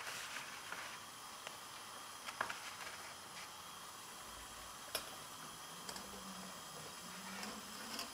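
Quiet kitchen sounds: a steady soft hiss with a few light clicks and taps from handling things at the counter, the sharpest about two and a half and five seconds in.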